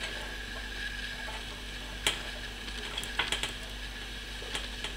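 Sharp snaps and crackles of a car battery charger's output clamp sparking as it is clipped onto a resistor dummy load: one loud snap about two seconds in, then a quick cluster of crackles about a second later, with a faint steady hum underneath.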